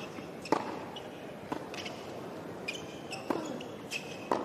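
Tennis rally on a hard court: sharp pops of racquets striking the ball and the ball bouncing, about one a second, with short high squeaks of shoes on the court surface in the second half.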